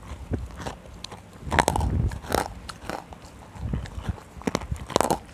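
Close-up crunching of dry, fully roasted nkumt chunks being bitten and chewed: a run of sharp, brittle crunches about every half second to second, with quieter chewing between.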